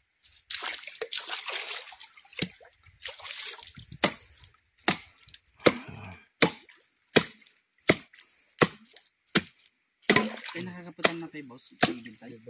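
Water splashing and sloshing for the first few seconds, then a steady run of sharp hammer blows on hard cement, a little more than one a second.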